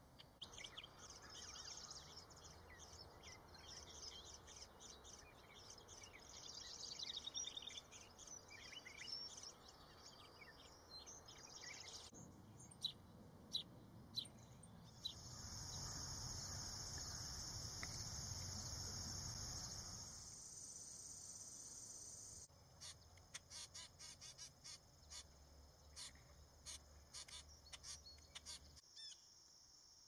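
Outdoor birds chirping and trilling in short, high calls, with a steady high insect drone for several seconds midway through. Short sharp chirps come again near the end.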